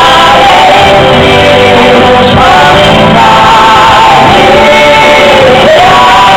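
A woman and a man singing a duet into microphones over musical accompaniment, amplified in a hall, with sustained sung notes that glide between pitches.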